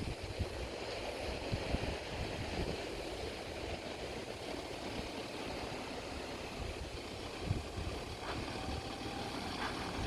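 A four-wheel-drive vehicle's engine running low and steady under a continuous rush of flowing creek water.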